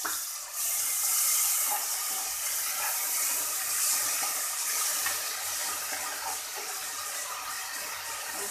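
Chopped onions frying in hot oil in a metal pot, a steady sizzling hiss that grows louder about half a second in, with a metal spoon stirring and scraping against the pot.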